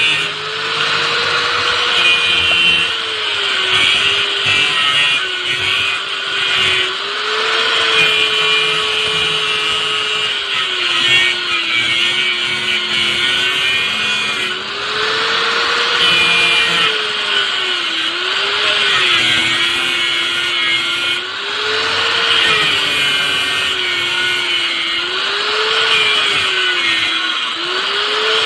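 Angle grinder cutting through a tyre's steel bead wire, its motor speed repeatedly sagging and recovering as the disc is pressed into the cut, over a gritty grinding noise.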